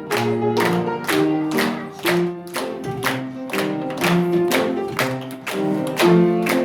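Music: chords strummed in a steady rhythm, about two strokes a second, each ringing on with held pitched notes.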